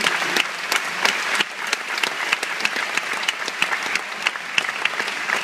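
A theatre audience applauding: many hands clapping at once, with some claps close by standing out sharply.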